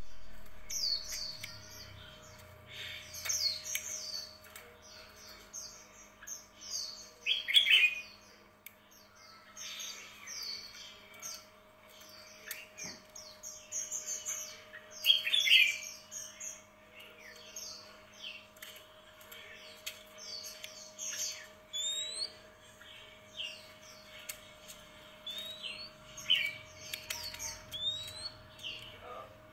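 Small songbirds chirping and twittering in a dense, continuous run of short high calls, with a few rising whistled notes in the second half and a faint steady hum underneath.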